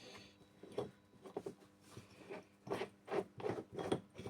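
Light clicks and scraping of metal parts being handled: the bearing press tool and the AC compressor pulley, just after the old pulley bearing has been pressed out. The clicks are scattered at first and come closer together in the second half.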